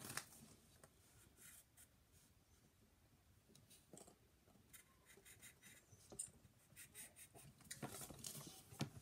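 Faint pencil strokes scratching on paper, short and scattered, growing busier near the end.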